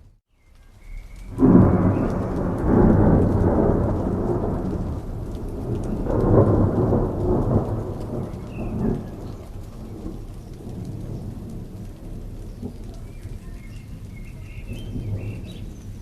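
Thunder over steady rain: after a brief silent gap, a loud rumble breaks in about a second and a half in, swells again around six seconds and dies away, leaving the rain falling steadily.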